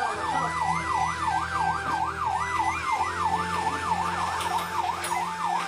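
Ambulance siren in a fast yelp, its pitch sweeping up and down about three times a second, heard from inside the ambulance over a steady low hum.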